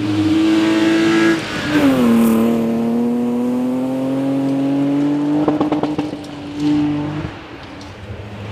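Historic rally car's engine running at high revs on a stage, changing up a gear about a second and a half in, then revs slowly climbing as it pulls away and fades about seven seconds in. A brief crackle comes in a little past halfway.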